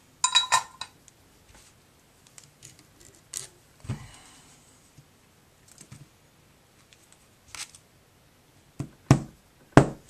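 Light handling knocks and taps, with a short metallic clink and ring near the start. Two sharp clicks come near the end, the loudest sounds here: an EC5 connector pin, soldered to the ESC lead and still warm, is pushed into its plastic housing and snaps into place.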